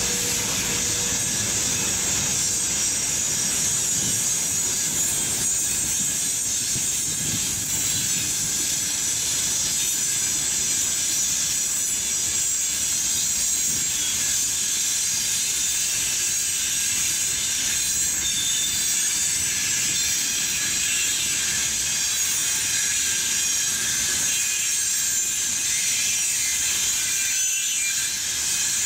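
A freight train's open wagons rolling steadily past over a level crossing: a continuous rumble of wheels on rail with a steady high hiss.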